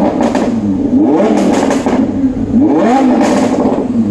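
Sports car engine idling and being blipped repeatedly, the exhaust note rising and falling about three times.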